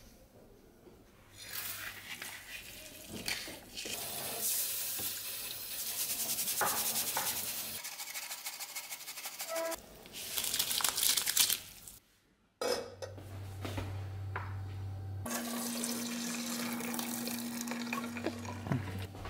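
Kitchen cooking sounds: an enamel pot of water bubbling on a gas stove, with pot and utensil noises. Near the end the hot contents are poured from the pot through a strainer into a steel sink.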